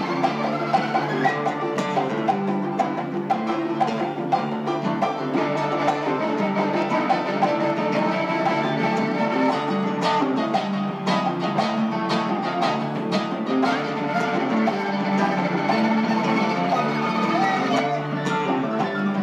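Live acoustic ensemble music inspired by Gnawa and Stambeli: guitars plucking a busy melodic line with a violin, over hand-drummed congas whose sharp strokes run throughout.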